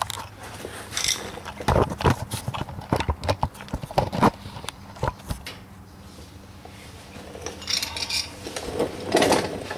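Irregular metallic clicks and knocks of hand tools on fasteners under a 1973 VW Super Beetle's air-cooled engine as loose parts are tightened. The knocks come in two clusters, one from about two to five seconds in and a shorter one near the end.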